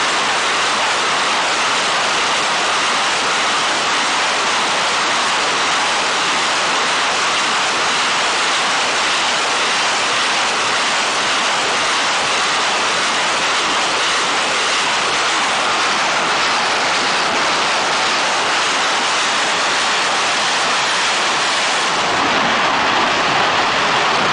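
Several truck-mounted multiple rocket launchers firing a salvo together, their rocket launches merging into one loud, unbroken rushing roar.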